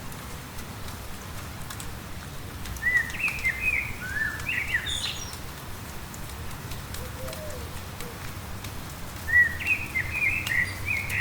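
A songbird sings two song phrases, each about two seconds long, about six seconds apart. Each phrase is a run of quick rising and falling notes that ends on higher notes, over a steady background of light rain.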